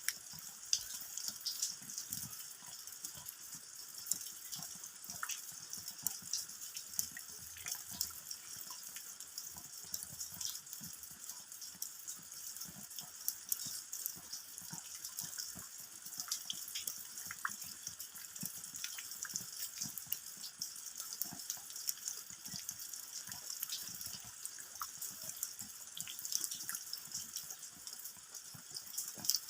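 Steady rain falling, with many fine drop patters and splashes of raindrops hitting the ground.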